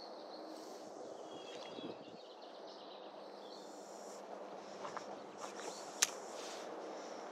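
Quiet outdoor background with faint bird chirps and the rustle of a spinning rod and reel being handled, broken by one sharp click about six seconds in.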